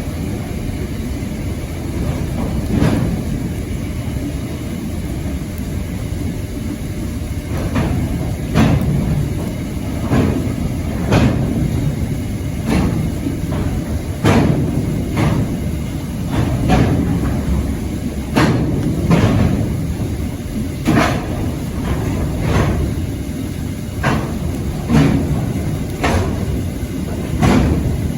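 Freight train rolling past: a steady low rumble of the wagons, with the wheels knocking sharply over the rail joints every second or so, often in pairs.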